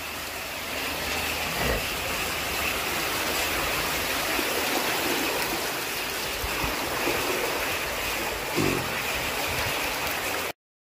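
Floodwater rushing through a street, a steady noise of flowing water that holds even throughout.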